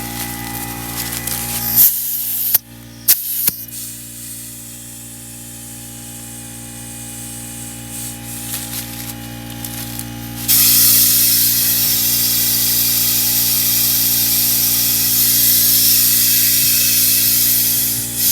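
Compressed air hissing loudly from an air chuck at a truck tire, starting abruptly about ten seconds in and cutting off near the end, after a few sharp clicks earlier on. The tire won't hold the air: it is off the rim, with no tube inside.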